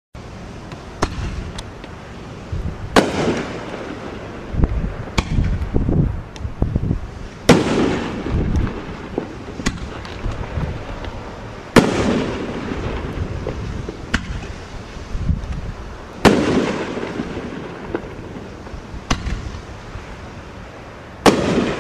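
500-gram aerial repeater cake firing 3-inch shells: loud sharp reports about every four to five seconds, each trailing into a low rumble, with fainter pops between them.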